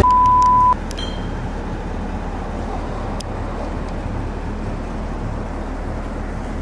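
A short, steady electronic beep lasting under a second, followed by a steady low vehicle rumble like an idling car, with a few faint clicks.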